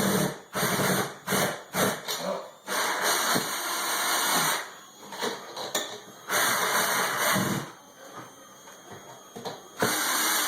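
Power drill running in a series of stop-start bursts, several short ones at first, then longer runs of a second or two, as it drives screws.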